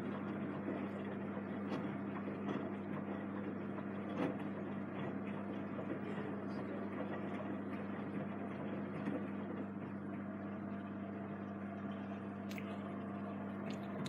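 Samsung Eco Bubble WW90J5456FX front-loading washing machine in its wash phase: the drum tumbling soapy laundry with water sloshing, over a steady hum and a few faint knocks.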